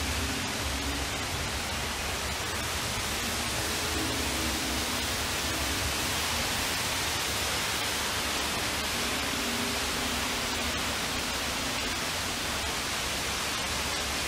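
Steady, even rush of a large indoor waterfall, with faint low tones coming and going underneath.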